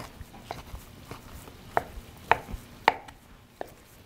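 Knife chopping cooked rotisserie chicken meat on a wooden cutting board: the blade knocks on the board about every half second, about seven strikes, stopping a little before the end.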